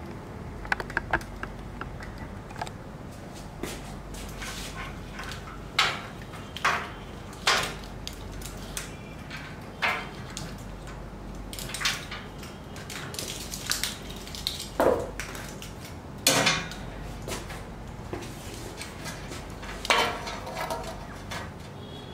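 Scattered sharp clacks and rattles of a plastic cable drag chain's links knocking against a slotted galvanized steel tray as the chain is handled and laid into it, over a steady low hum.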